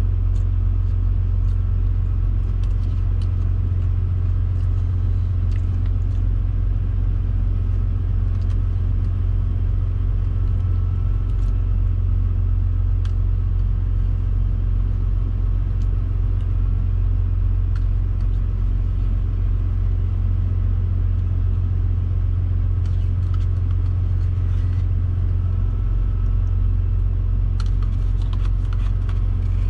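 Semi-truck's diesel engine idling, a steady low rumble heard inside the cab, with a few faint clicks now and then.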